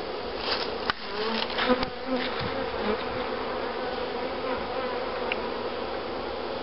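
Many honey bees buzzing steadily, the colony stirred up and active as it is being installed into a hive. A few sharp knocks and scrapes of handling come within the first two seconds.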